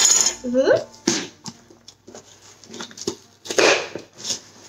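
Packing tape being picked at and peeled from the seam of a cardboard box, with several short ripping and scraping bursts of tape and cardboard and a short rising squeal about half a second in.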